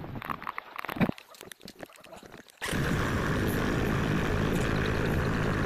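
A few light clicks and knocks, then about two and a half seconds in a sudden steady rush of off-road motorcycle engine and wind noise starts.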